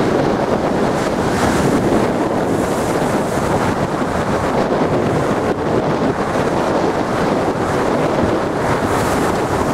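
Rough storm surf churning and washing against a stone sea wall, mixed with strong wind buffeting the microphone: a steady, loud rushing.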